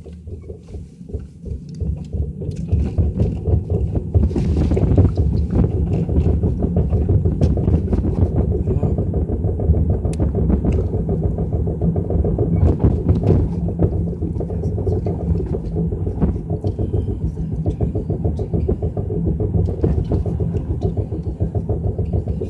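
Car cabin sound while driving: a steady low rumble of the car and road that builds over the first couple of seconds and then holds, with scattered light knocks. The driver takes the knocking for a loose tailpipe banging.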